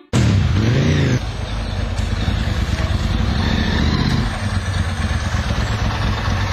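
Motorcycle engine running as the bike pulls in, its pitch rising and falling for about the first second, then settling to a steady, low, even beat at low revs.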